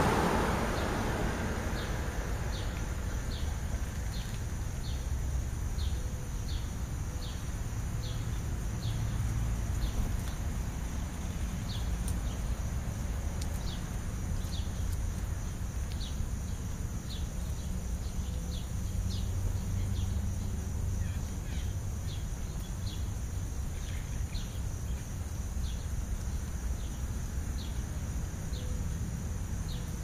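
House sparrows chirping, short single chirps repeated over and over, fairly evenly at first and then more irregularly, over a steady low rumble of traffic and wind. A passing car fades out at the start.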